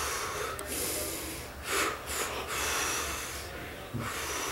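A person breathing heavily and noisily, about four long breaths in a row, acted as labour beginning.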